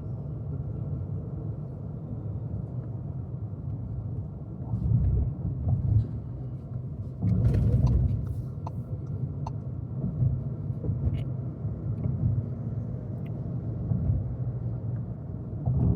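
Volkswagen Virtus GT's 1.5 TSI turbocharged four-cylinder engine and tyres giving a steady low rumble on the move, swelling louder twice, about a third of the way in and again near halfway, with a few faint clicks.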